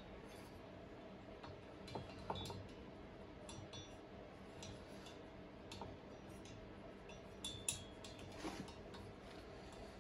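Faint, scattered metallic clicks and clinks of a T-handle wrench and small hand tools working on a chainsaw cylinder's fasteners, with a handful of sharper clinks near the middle and end.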